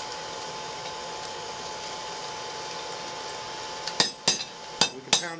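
Four quick hand-hammer blows on hot rebar on an anvil, about a second from the end, a few tenths of a second apart, shaping the rebar's pigtail end. Before them only a steady background hum.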